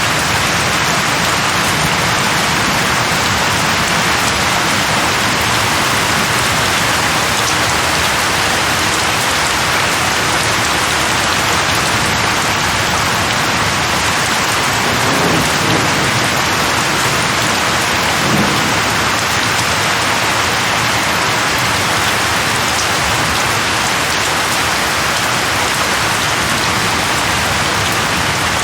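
Steady, dense rain falling on tree leaves, with two brief low rumbles of thunder about halfway through.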